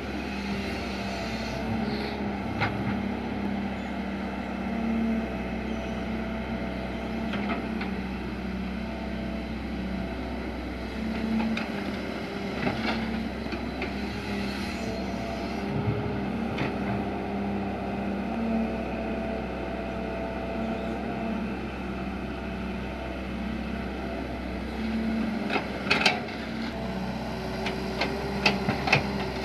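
Diesel engine of a John Deere 495D wheeled excavator running steadily under hydraulic load as the arm digs and swings, with a shifting hydraulic whine. A few sharp knocks come near the end as the bucket dumps its load.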